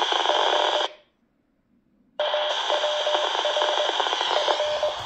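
Talkpod A36 Plus handheld transceiver's speaker hissing and crackling on a weak 2 m repeater signal that is only just being received. It cuts out abruptly about a second in and comes back about a second later, with a short tone keying on and off in dashes.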